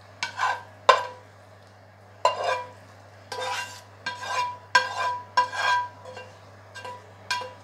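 A fork scraping and tapping against a metal frying pan, scooping the fried mushroom mixture out into a bowl: about ten separate strokes, each with a short metallic ring.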